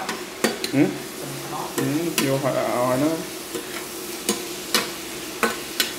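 A spatula stirring shallots and chicken intestines in a steel frying pan, clacking and scraping against the pan a dozen or so times over a steady sizzle of frying.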